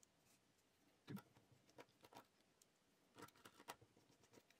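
Near silence broken by a few faint clicks and taps of a small precision screwdriver and fingertips on the iPhone 7 display assembly's metal bracket, with a short cluster of clicks near the end as the driver tip is set into a bracket screw.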